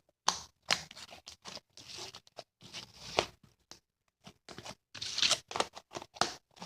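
Foamy slime being picked up and worked by hand, making a string of irregular scratchy noises.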